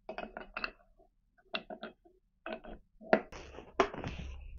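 Light metallic clicks and taps in small clusters as milling-machine spindle parts are handled and fitted. Two sharper knocks come about three and four seconds in, the second followed by a short rustling scrape.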